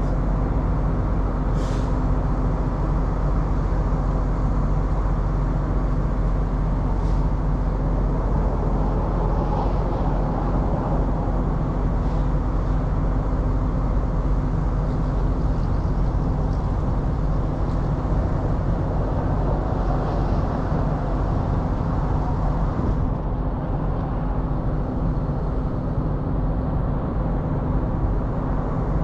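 Heavy truck's diesel engine idling steadily, an even low hum, with a couple of faint clicks.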